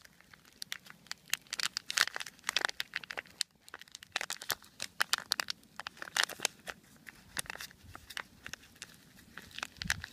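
Thin plastic cup being cut open with scissors and bent apart: irregular sharp crackling and snapping of the plastic.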